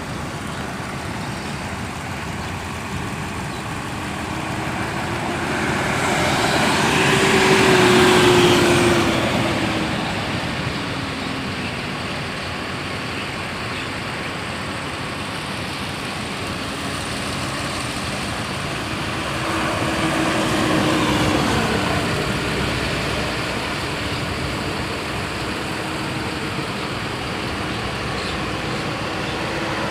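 Motor vehicle engine running over a steady road-noise bed, swelling louder twice, about eight and twenty-one seconds in, its tone rising and then falling in pitch each time.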